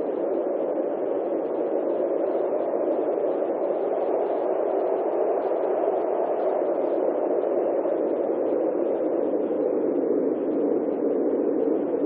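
A steady, even rushing noise with no distinct events and no bird calls in it.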